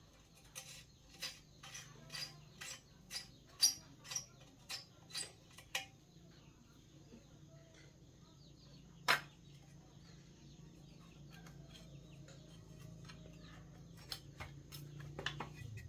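A run of sharp taps, about two a second for some five seconds, then a single louder knock about nine seconds in and a few more taps near the end, over a low steady hum.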